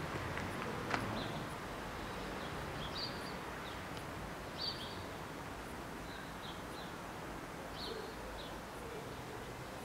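Steady outdoor background noise with small birds chirping briefly now and then, and a single sharp click about a second in.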